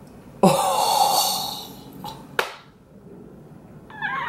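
A woman's loud, startled cry of shock on seeing her own face, about half a second in, fading over a second or so. A sharp breath follows about two seconds in, and a short high-pitched whimper comes near the end.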